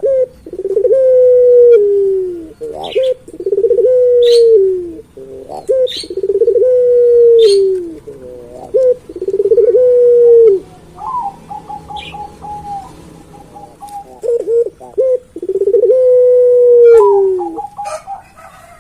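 A male puter pelung, a long-cooing breed of domestic collared dove, cooing again and again: five long, deep coos, each held steady and then falling in pitch at the end. Short higher chirps come between the coos.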